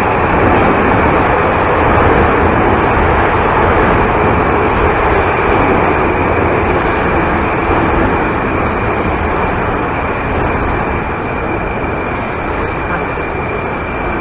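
Metro train running along the platform on the far track: a steady rumble of wheels and motors with a thin high whine, easing slightly toward the end.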